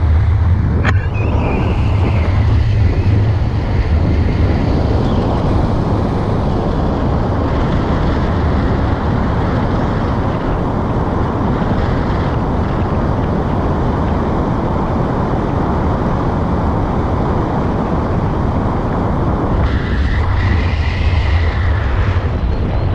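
Airflow buffeting an action camera's microphone during a tandem paraglider flight: a loud, steady, deep wind rumble.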